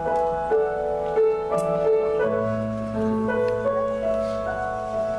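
Slow piano music with no singing: single notes and chords struck one after another and left to ring, over a held bass note from about halfway through.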